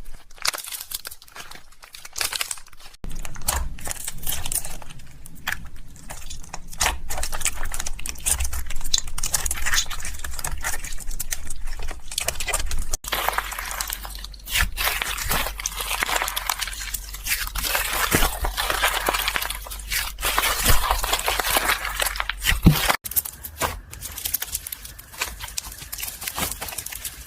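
Butter slime being squished and stretched by hand, making soft sticky crackling and popping. The texture changes abruptly three times, as if between separate takes.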